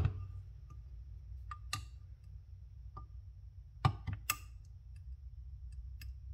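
Scattered light clicks and ticks of a screwdriver tip working at a jet inside a carburetor body, about seven in all, the loudest pair about four seconds in, over a low steady hum.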